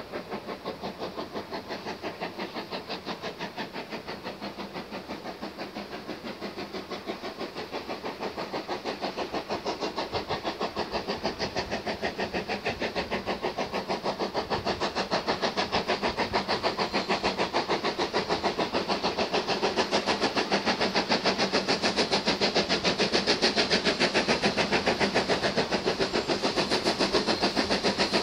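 Steam locomotive hauling a train, its exhaust beats coming in a fast, even rhythm and growing steadily louder as it approaches.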